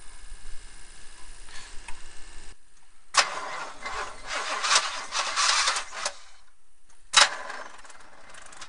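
A 1976 Oldsmobile Cutlass's starter cranking the engine for about three seconds without it catching, then a second short crank near the end; the car won't start.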